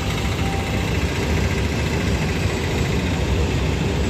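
Auto-rickshaw engine running close by, a steady loud rumble.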